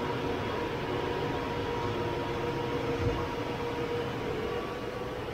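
MGI JETvarnish 3D digital varnish press running: a steady mechanical hum and fan noise with faint steady tones, and a brief low thump about three seconds in.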